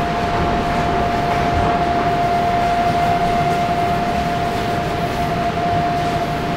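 Electric commuter train running at steady speed, heard from inside the carriage: an even rumbling running noise with a constant high-pitched whine that holds one pitch throughout.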